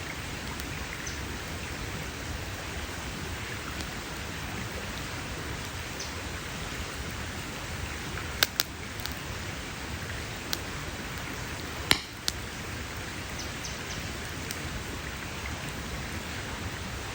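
Wood campfire burning: a steady soft crackling hiss, broken around the middle by a few sharp pops of the burning wood, two in quick succession and then two more a few seconds later.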